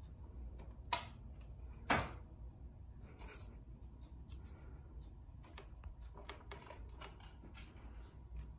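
Kitten clambering on a wooden cat tree: two sharper knocks of paws on the platform about one and two seconds in, the second the loudest, then scattered light clicks and taps of paws and claws.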